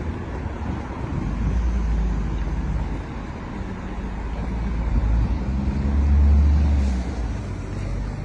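Road traffic passing on a street, a low engine rumble swelling to its loudest about six seconds in before easing.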